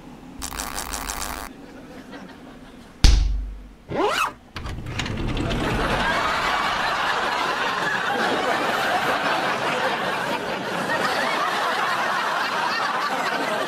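Cartoon sound effects: a short buzzing rattle, then a loud bang, a quick sliding pitch glide, and then a long stretch of audience laughter.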